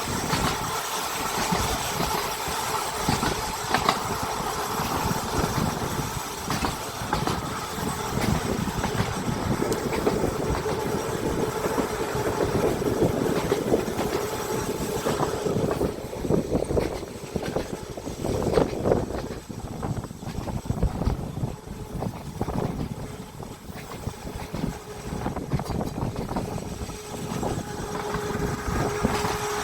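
Electric tram of the Seaton Tramway running along its track, heard from on board: continuous rumble of wheels on rail with many rattles and clacks. The running noise eases for a while in the second half, and a steady hum comes in near the end.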